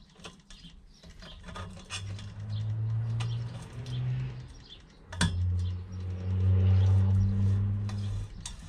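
Clicks, scrapes and squeaks of a pliers-type exhaust pipe cutter being worked around the steel exhaust pipe of a 2002 Chevrolet Blazer. A low steady hum rises about two seconds in and again after a sharp click a little past five seconds, the second time louder and lasting about three seconds.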